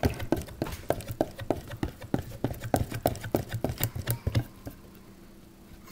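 A whisk mixing brown gravy in a plastic container, in quick, even, clicking strokes about three a second. The strokes stop about four and a half seconds in.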